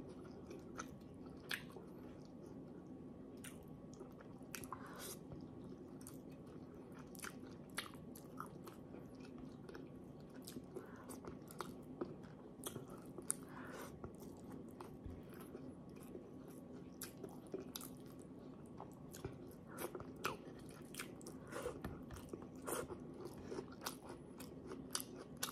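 Faint, close-up chewing of a person eating a fish-and-rice meal by hand, heard as many small, irregular mouth clicks, with a faint steady low hum underneath.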